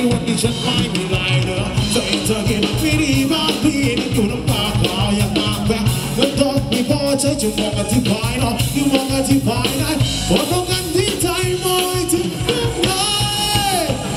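Live band playing amplified baslob dance music through a PA: a singer over drums and keyboard with a steady dance beat.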